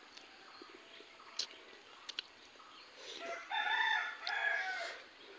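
A rooster crowing once about three seconds in, a multi-part crow lasting about two seconds. Before it come a few short sharp clicks of chewing.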